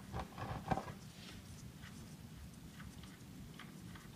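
Faint handling clicks from a motorcycle's oil drain plug being unscrewed by hand over a plastic drain pan: a few small clicks in the first second, then scattered light ticks over a low hum.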